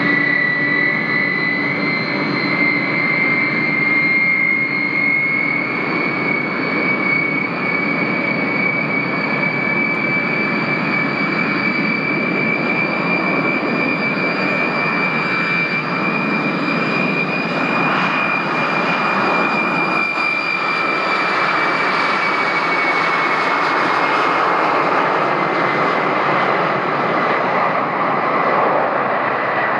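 Ilyushin Il-62 airliner's four rear-mounted jet engines running up to high power: a strong high whine climbing slowly in pitch over a dense jet rush, the whine easing slightly and the rush growing in the last third as the aircraft moves away down the runway.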